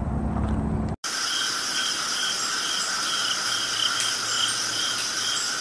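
Chorus of singing insects: a steady high-pitched trill, with another call pulsing about twice a second over it. It begins abruptly about a second in, after a low steady rumble.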